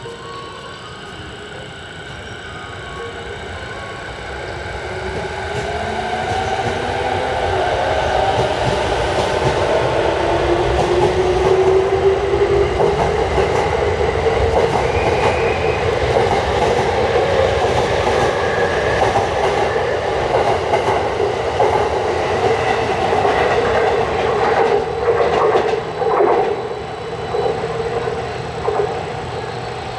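A ten-car JR East 209 series electric train pulling out of the station and accelerating past. Its VVVF-inverter traction motors give a whine that rises in pitch as it gathers speed. Later the wheels clack over rail joints as the last cars go by, and the sound fades as the train pulls away.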